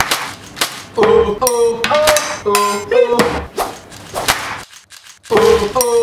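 A fast edited run of object sounds cut together to a beat: sharp knocks and clacks, many carrying a short pitched tone, about two a second, with a brief lull about five seconds in.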